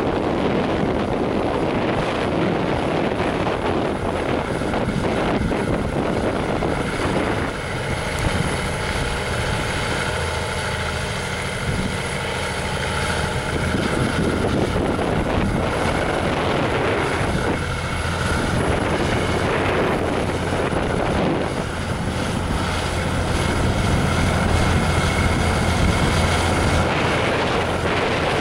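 Heavy-haul semi trucks' diesel engines laboring under heavy load, pulling an 80,000 lb steel tank up a steep 18% grade. It is a steady drone that gets a little louder and deeper near the end.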